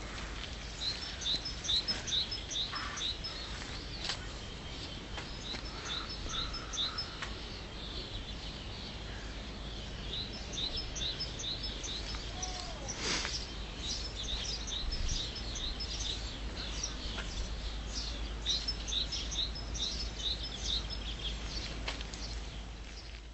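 A bird singing in repeated phrases of quick, high chirps, phrase after phrase, over a steady low rumble.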